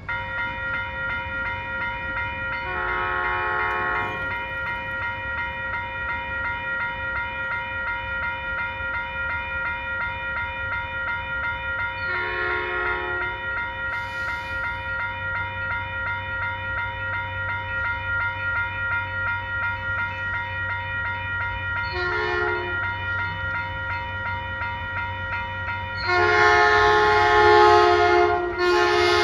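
A grade-crossing warning bell starts ringing with a steady, rapid pulse. Over it a Caltrain locomotive horn sounds the crossing signal: two long blasts, a short one, then a longer, louder blast near the end as the train draws closer.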